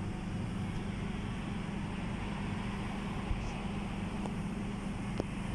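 Air conditioner in a bus shelter running with a steady, even hum.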